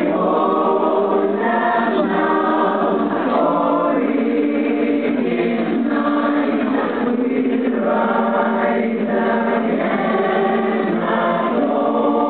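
Many voices singing together as a choir, slow and sustained, each chord held for about a second before moving to the next.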